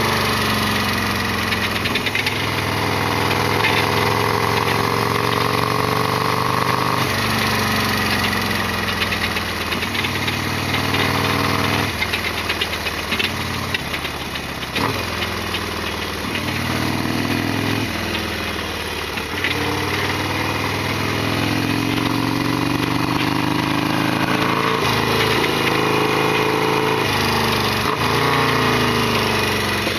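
Harley-Davidson Sportster XL1200R's air-cooled V-twin engine running under way, its pitch climbing and then dropping again several times as the bike accelerates and shifts gears.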